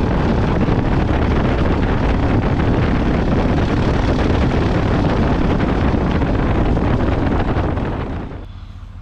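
Loud, steady rush of wind and road noise from a moving vehicle, buffeting the microphone. It drops away sharply about eight seconds in, leaving a low engine hum.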